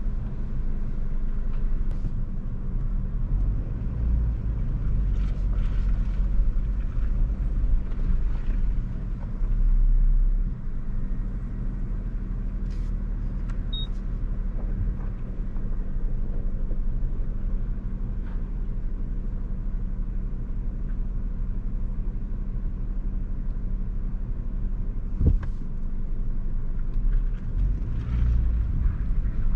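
2022 Nissan Frontier Pro-4X's 3.8-litre V6 running steadily as the truck drives a rough off-road trail, a constant low rumble. A short louder surge comes about ten seconds in, and a few knocks from the truck working over the trail, with one sharp knock near the end.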